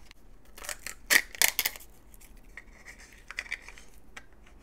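Sharp plastic clicks and crinkly rustling as a Zuru Toy Mini Brands plastic capsule and its wrapping are handled and opened. The loudest clicks come in a quick cluster about a second in, with lighter crinkling after.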